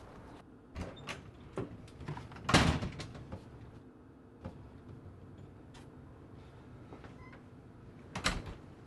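Quick footsteps, then a loud door bang about two and a half seconds in, a few faint knocks, and a second sharp door thud near the end.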